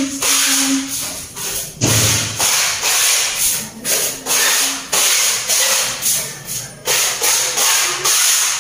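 Music with a steady beat, a sharp percussive hit about once a second, and no clear singing.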